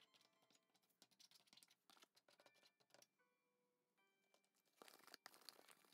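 Near silence: faint background music with soft, scattered ticks and taps.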